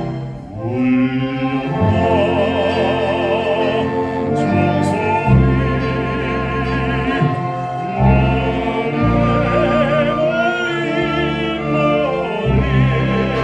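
Baritone singing long held notes with a wide operatic vibrato over a full orchestra with sustained bass notes; the sound dips briefly about half a second in, then swells back.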